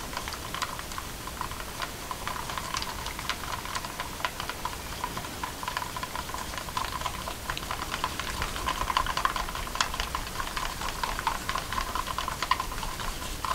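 A wooden craft stick stirring thick acrylic pouring paint in a plastic cup as water is mixed in, giving fast, irregular clicking and scraping as the stick knocks against the cup walls.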